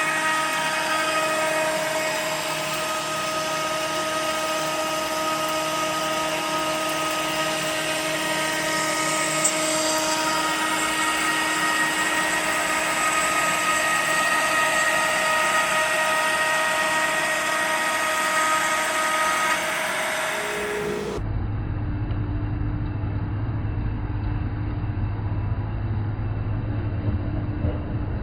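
CNC router spindle whining steadily as it cuts a shelf board. About two-thirds of the way in, the sound switches abruptly to a steady low hum.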